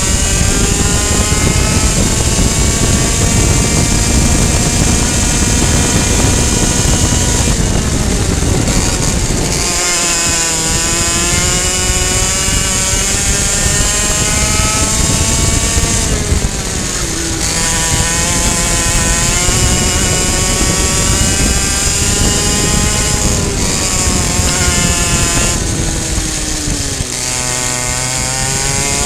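Two-stroke racing kart engine at full throttle, its pitch climbing steadily on the straights and falling sharply four times as the revs drop for corners, then climbing again. Steady wind rush on the onboard microphone underneath.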